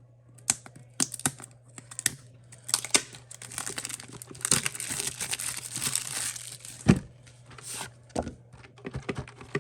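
Speed-cube packaging being handled and opened: crinkling and tearing of the wrapping, with scattered sharp clicks and knocks and a longer spell of steady crinkling about halfway through.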